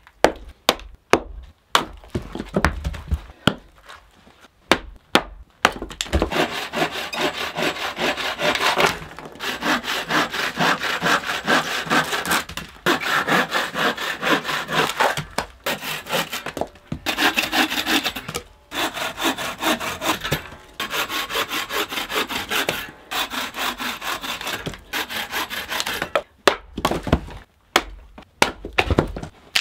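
A hatchet chopping wood on a stump chopping block: a quick series of sharp strikes. About six seconds in, a bow saw takes over, cutting through a log in runs of fast back-and-forth strokes with short pauses. Hatchet strikes return near the end.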